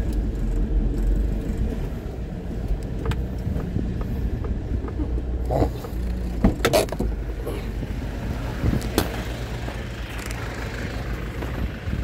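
Cab interior noise of a Hyundai truck on the move: a steady low engine and road rumble, with a few clicks and knocks about halfway through.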